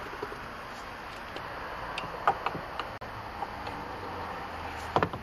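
A few light metallic clicks and taps as the piston, cylinder and connecting rod of a small two-stroke engine are handled and fitted together by hand, with a louder click near the end, over a steady hiss.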